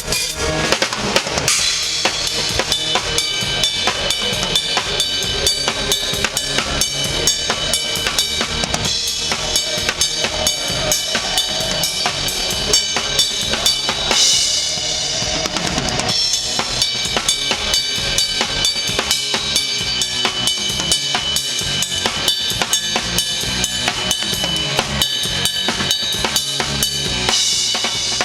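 Drum kit being played: a rapid run of bass drum and snare hits with cymbals ringing, and a louder cymbal wash about fourteen seconds in.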